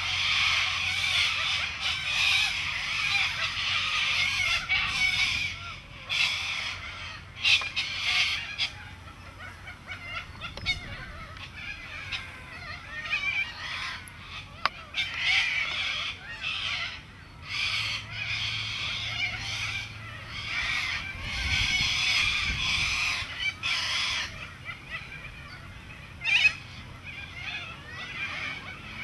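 A dense chorus of many birds calling at once, thickest in the first few seconds and again in the second half, with a few short sharp knocks.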